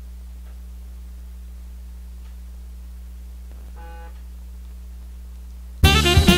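A steady low hum with a few faint ticks and a brief faint tone about four seconds in. Near the end, background music with saxophone and drums starts abruptly.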